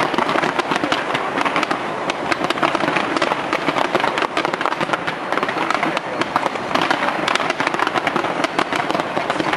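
Large fireworks display going off without a break: a dense, continuous crackle of many rapid cracks and pops.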